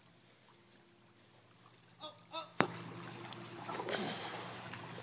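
Water splashing and sloshing in a swimming pool with people's voices, after two short calls and a sharp click a little past halfway; from the click on, the background is louder and steady.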